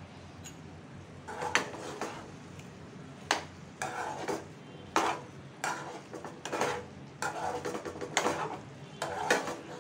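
A spatula stirring chicken pieces in a kadhai, scraping against the pan. The strokes start about a second in and come short and irregular, roughly one or two a second.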